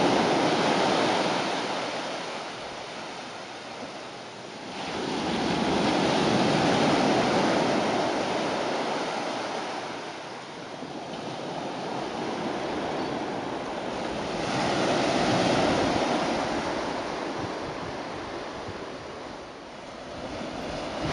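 Small waves breaking and washing up a sandy beach, the surf noise swelling and fading in slow cycles several seconds apart.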